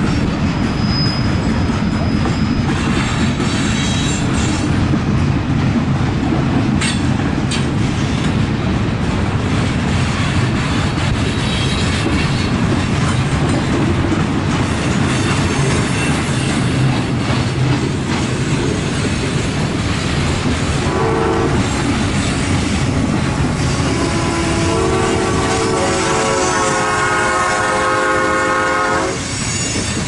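Freight train cars rolling past close by, with a steady rumble and wheel clatter. About two-thirds through, a multi-chime horn gives a short blast, then sounds a longer chord for about five seconds before cutting off near the end.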